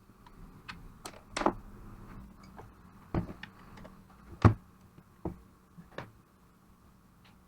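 Irregular clicks and knocks of tools and parts being handled, with the loudest knock about four and a half seconds in.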